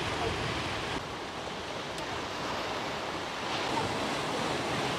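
Sea waves surging and breaking over a rocky shore, a steady rush of surf that swells a little louder about three and a half seconds in.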